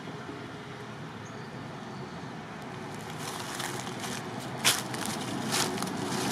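Steady low outdoor rumble, with crackling rustles starting about three seconds in; the loudest is a sharp crackle near the end.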